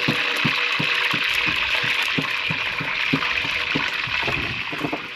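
Hot cooking oil sizzling in a large pot over a wood fire: a steady hiss with soft low knocks about three times a second.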